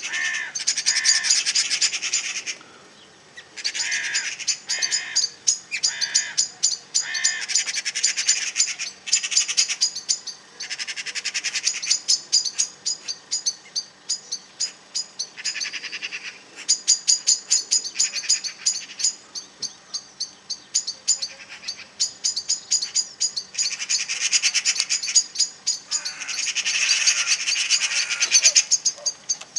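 Birds chirping and scolding in fast runs of sharp, high calls, each run lasting a second or two with short gaps between. These are alarm calls of birds mobbing a cat.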